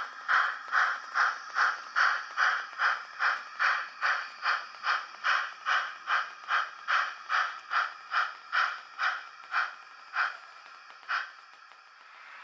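H0 model steam locomotive's sound decoder chuffing in a steady rhythm, about two and a half chuffs a second. The chuffs slow and fade out near the end.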